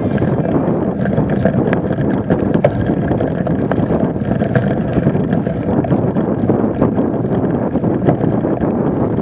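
Wind buffeting a bike-mounted camera's microphone, mixed with the rumble and small rattling clicks of a bicycle riding over a rough, muddy grass track.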